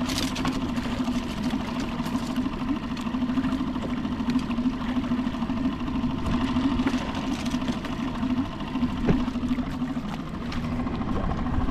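Small outboard motor on a fishing kayak, running steadily at low revs with an even hum. A few short knocks come through, once near the start and again about nine seconds in.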